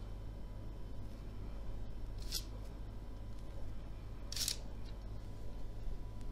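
Baking parchment rustling briefly twice as soft dough balls are set down on it, over a low steady hum.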